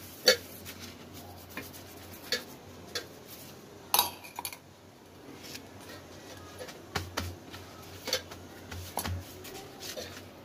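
A metal spoon clinking against a small steel bowl of ghee in scattered, irregular taps while ghee is spread on rotis, over a faint steady low hum.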